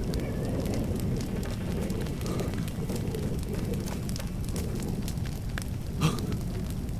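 Small fires crackling, with scattered pops over a steady low rumble; one louder pop about six seconds in.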